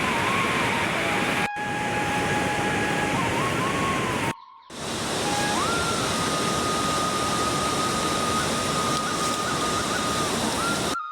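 Steady rush of flowing water, with a thin melody of long held notes above it. The sound cuts out abruptly twice: briefly about a second and a half in, and for a moment around four and a half seconds.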